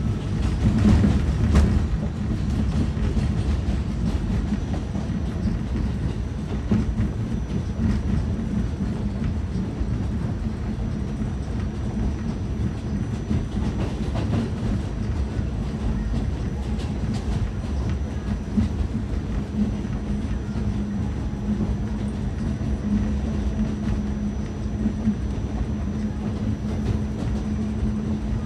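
R46 subway car running between stations, heard from inside the car: a steady rumble of wheels and motors with a low hum, and wheel clicks over the rail joints here and there. It is a little louder in the first couple of seconds.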